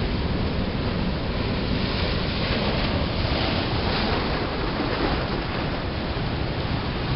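Atlantic Ocean surf breaking on rocky shore and rushing into a tidal pool, a continuous wash of water that swells a little in the middle. Wind buffets the microphone.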